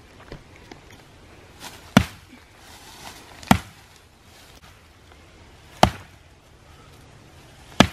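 An axe chopping into a small tree trunk: four separate heavy strikes, spaced roughly two seconds apart.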